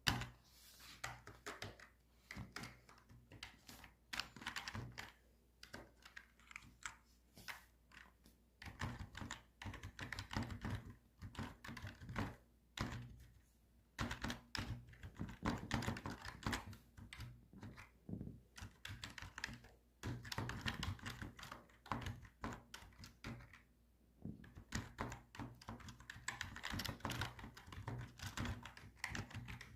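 Typing on a computer keyboard: rapid runs of key clicks and thuds in bursts, with short pauses between them and a louder keystroke at the very start.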